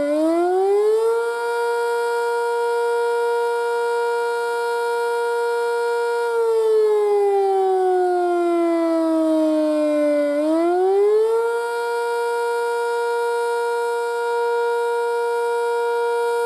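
Sentry 5V outdoor warning siren sounding the wailing Attack signal. Its pitch rises over about a second, holds for about five seconds, falls over about four seconds, then rises and holds again.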